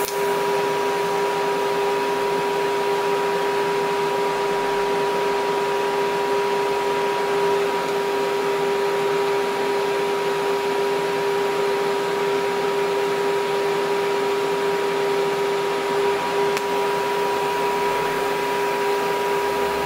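DC TIG welding arc from an EWM Tetrix 300 AC/DC Comfort 2.0 inverter burning on stainless steel at about 120 A, without pulse or filler wire: a steady hiss with a constant buzzing tone.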